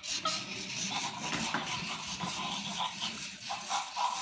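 Zoomer Chimp robotic toy monkey's small electric motors and gears whirring as it moves across a hardwood floor, with a fast, even ticking about five times a second.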